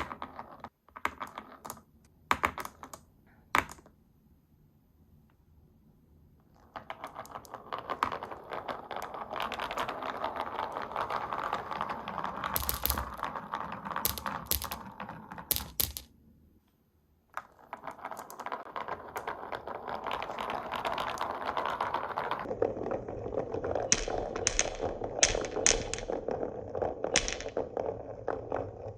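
Glass marbles rolling and clattering down a wooden marble run with wave-shaped slopes. A few sharp clicks at first, then a long rolling rattle from about seven seconds in, a brief stop around sixteen seconds, and more rolling with sharper clacks near the end.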